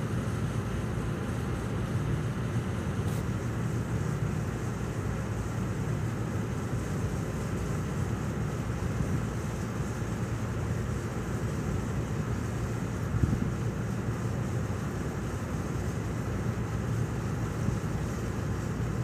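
Steady low drone of a cargo ship under way, with one brief knock about two-thirds of the way through.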